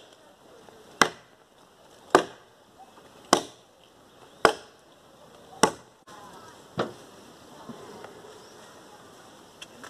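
Axe chopping into a fallen log: five sharp blows, a little over one a second, then a single knock about a second after they stop.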